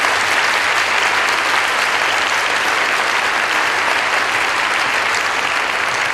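Sustained applause from a large seated audience in a hall, a dense steady clatter of many hands clapping that eases slightly near the end.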